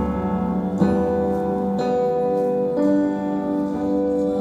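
Live church worship band playing a slow song: sustained chords on keyboard and guitar, changing about a second in and again near three seconds.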